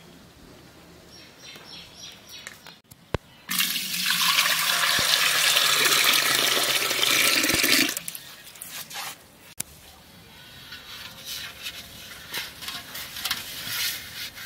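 Water poured into a metal cooking pot: a steady rush for about four seconds that cuts off suddenly. Softer, patchy rustling and handling sounds follow as a cloth is stretched over the pot's mouth.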